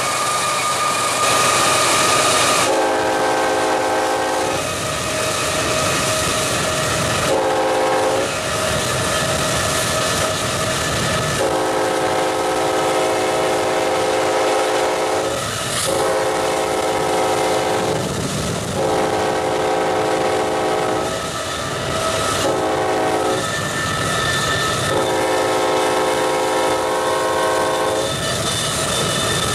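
Air horn of Norfolk Southern 8101, the Central of Georgia heritage GE ES44AC, sounding seven blasts of mixed length, some long and some short, as the locomotive approaches. Underneath runs the steady rumble of the train and its wheels on the rails.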